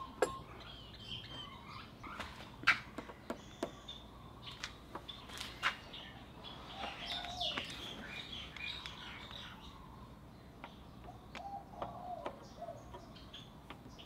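Scattered sharp clicks and taps of hand-tool work on a Vespa LX scooter's metal parts, the loudest about a quarter second in and near three seconds in. Birds chirp in the background.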